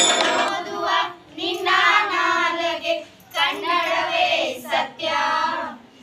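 A group of girls singing together without accompaniment, in short phrases about a second long with brief breaks between them.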